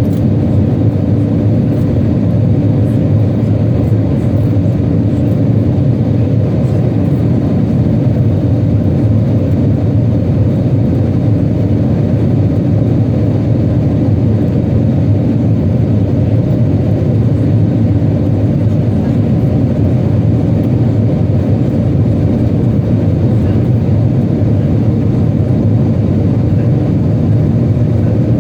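Airbus A320 cabin noise during the climb: an even, low drone of engines and airflow, heard inside the cabin over the wing.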